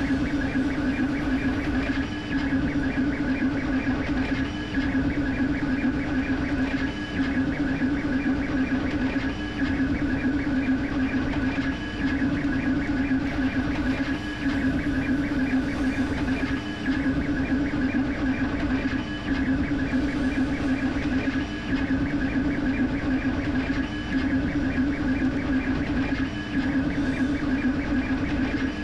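Creality K1C 3D printer printing at high speed: a steady mechanical drone and whine as the print head sweeps back and forth, with a brief dip in the sound about every two and a half seconds.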